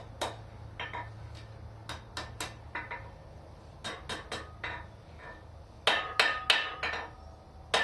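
Hand hammer striking hot 3/8-inch mild steel rod on the anvil, pounding the rod's end over into a curl: quick bunches of three or four light blows with short metallic ringing after them, the loudest bunch about six seconds in.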